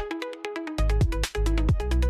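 Electronic background music: a quick repeating synth melody, joined about three-quarters of a second in by a heavy bass and a beat.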